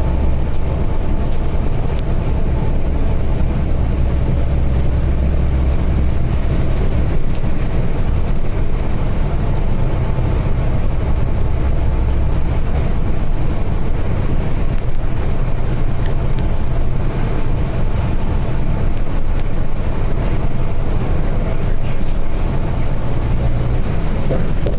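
Volvo B8RLE bus heard from inside the cabin while under way: diesel engine drone and road noise, the low engine note shifting a couple of times.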